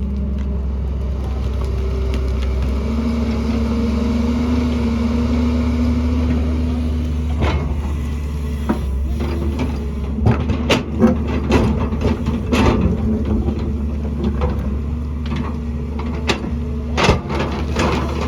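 Diesel excavator running steadily under load. From about halfway in, a run of irregular clunks and knocks: the bucket and tracks working rock and mud.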